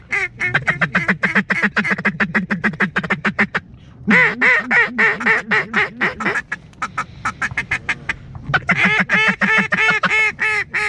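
Duck quacking in fast runs of about ten notes a second, with a short break about four seconds in and a quieter stretch a few seconds later before the quacking picks up again.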